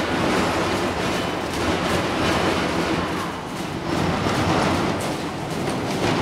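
Grape destemmer machine running steadily with a low hum, throwing out stripped grape stems.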